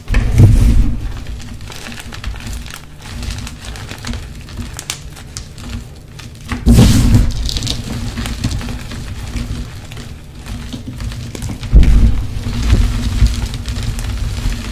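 Bare hands scooping, squeezing and crumbling a bowlful of crushed gym chalk powder and chunks, a soft gritty crunching. It swells louder three times: at the start, about seven seconds in and about twelve seconds in.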